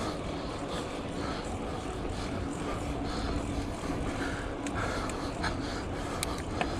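Steady rubbing and rustling on a chest-mounted action camera as a mountain biker pedals up a steep climb, with a soft rhythmic pulse about twice a second.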